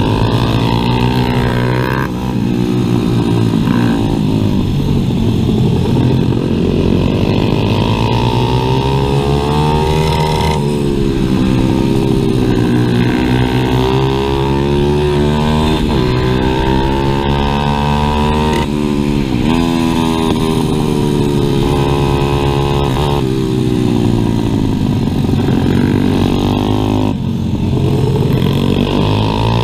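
Stock 140cc single-cylinder four-stroke pit bike engine heard from on board while racing, its pitch climbing under throttle and dropping sharply at gear changes and when backed off for corners, over and over.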